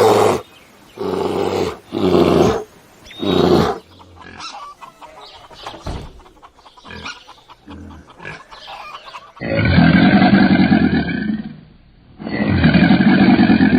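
Farm animal calls from more than one animal: a few short calls, then two long, low calls of about two seconds each, starting near the middle and near the end.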